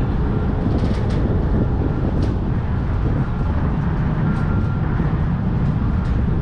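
Wind buffeting the microphone on a high open-air deck: a steady low rumble, with a few faint clicks on top.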